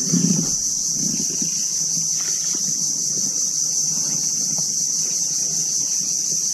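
Steady, high-pitched insect drone, with irregular low knocking and rustling underneath, strongest right at the start.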